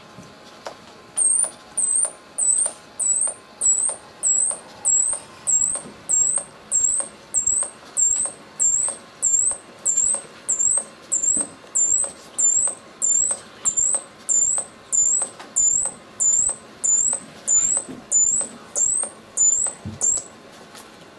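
A very high, even chirp repeated steadily about one and a half times a second, each chirp dipping then rising in pitch; it starts about a second in and stops shortly before the end.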